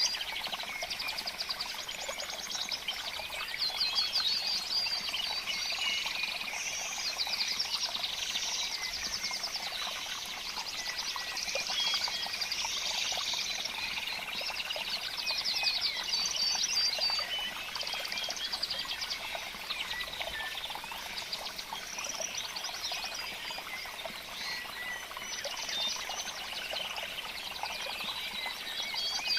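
Dense chorus of small birds chirping and trilling continuously over a steady background hiss.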